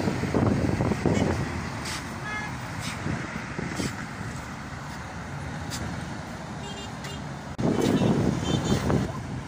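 Road traffic on a bridge: steady engine and tyre noise of passing cars and trucks. It is louder at the start and again after a sudden jump about seven and a half seconds in.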